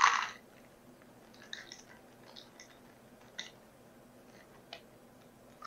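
A plastic bag of chocolate chips crinkling as chips are poured from it into a measuring cup, loudest in the first half second, then faint scattered rustles and a few light clicks of chips dropping.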